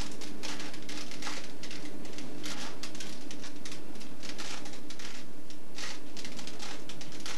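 Plastic Rubik's cube being turned rapidly by hand: a dense run of small plastic clicks and rattles in irregular bursts.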